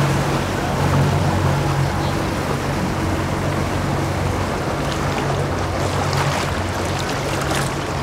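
Boat motor running steadily with a low hum over a wash of water noise, with a few light clicks near the end.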